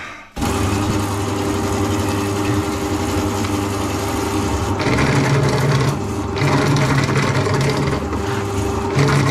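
Electric drain-cleaning spiral machine switching on about half a second in and running steadily as the spiral turns in the drain pipe, a deeper hum coming in about halfway through.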